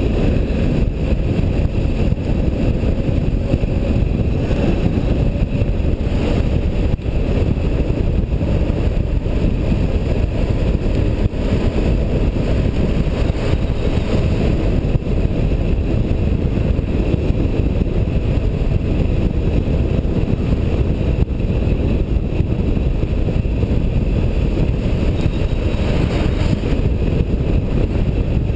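Steady, loud low rumble of wind buffeting the microphone of a camera travelling along a road, mixed with the running noise of the vehicle carrying it.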